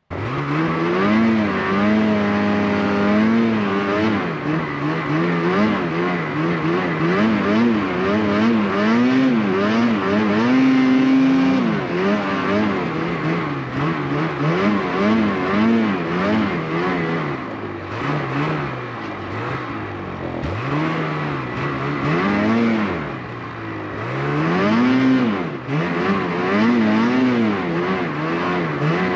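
Snowmobile engine being ridden, its pitch rising and falling over and over as the throttle is opened and eased off.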